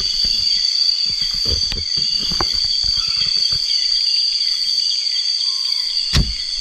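Loud chorus of night insects: a steady, high shrill with an even pulsing beat above it. Scattered soft knocks and a sharp knock near the end come from handling in the boat.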